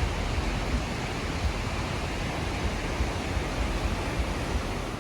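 Waterfall rushing as a steady, even hiss, with a low rumble underneath.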